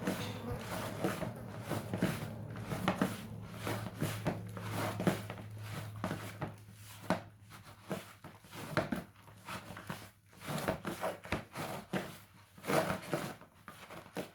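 Hands kneading a stiff wheat-flour dough in a bowl: irregular soft squishes, slaps and knocks. A low steady hum runs under the first half.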